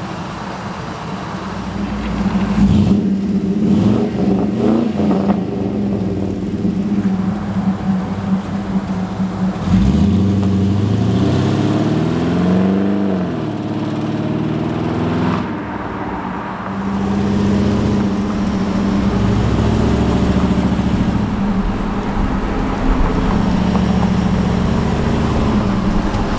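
Fuel-injected LS V8 in a custom 1959 GMC 100 pickup, running and driving. Its pitch rises as the truck accelerates about ten seconds in, then falls back and settles into a steady engine note as it drives past.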